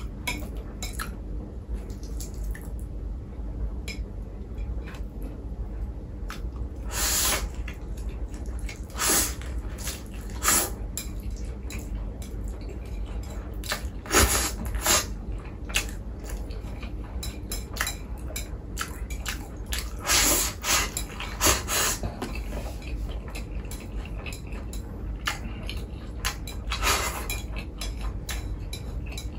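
A person eating: irregular small clicks of chewing and of utensils against dishes, with a handful of louder, longer noises every few seconds.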